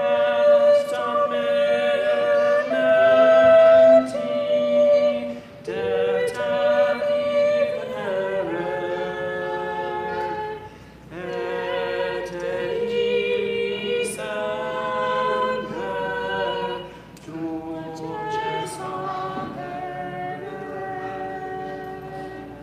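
Choir singing unaccompanied, in sustained phrases of about five or six seconds with short pauses between.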